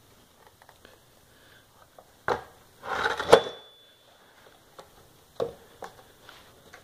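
Handling noises from a vintage Homelite C5 chainsaw, not running: a sharp click, then a short rattle of knocks ending in a loud metallic clink that rings briefly, about three seconds in, followed by a few lighter clicks.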